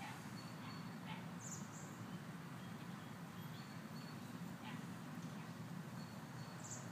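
Steady low outdoor background hum, with faint rustles of catnip leaves as a cat rolls and rubs in the potted plant, and two brief high chirps, one about a second and a half in and one near the end.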